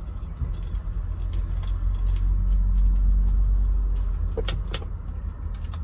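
Low engine rumble of a nearby car, swelling to its loudest about halfway through and then easing off, with a few light clicks and knocks from cables and trim being handled.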